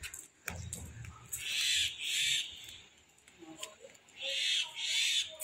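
A bird calling in pairs, two calls about half a second apart, heard twice about three seconds apart.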